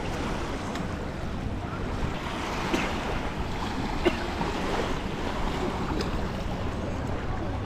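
Steady wind buffeting the microphone over water noise, with two short knocks about three and four seconds in.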